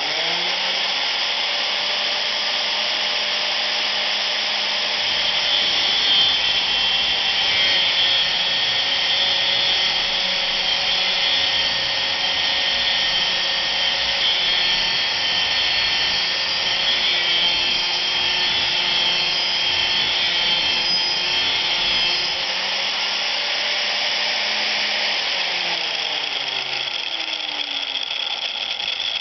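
Angle grinder with a cutoff disc, fixed in a stand, running at speed with a steady motor whine. From about five seconds in to about twenty-two seconds, steel pipe is pressed against the spinning disc, adding a harsh grinding noise as the disc cuts a slit. Later the motor's pitch slides down.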